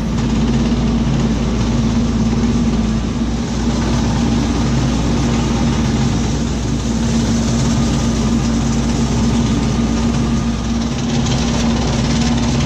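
A 20 hp Massey Ferguson tractor running steadily under load with its bush hog rotary mower cutting through weeds and brush, a constant humming drone over a rushing mechanical noise.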